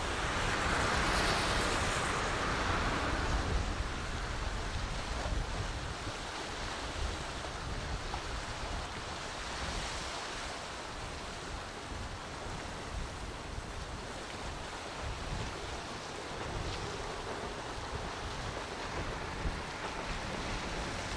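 Surf washing on the shore and wind rumbling on the microphone, a steady noise that swells louder for the first couple of seconds.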